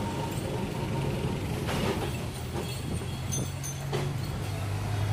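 Electric tram car running, heard from inside the car: a steady low hum with rattles and knocks over the noise of the street.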